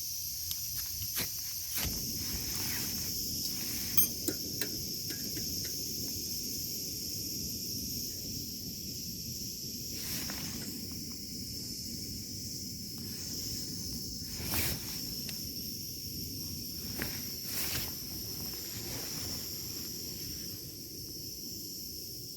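A steady, high-pitched chorus of insects, with occasional sharp clicks and a low rustling underneath.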